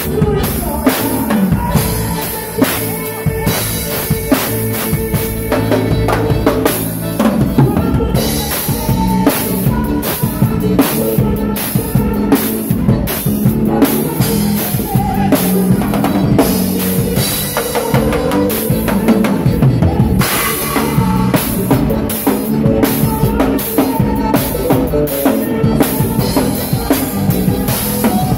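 Drum kit played live, with snare, bass drum and cymbal hits in a fast, dense stream, over keyboard notes held underneath.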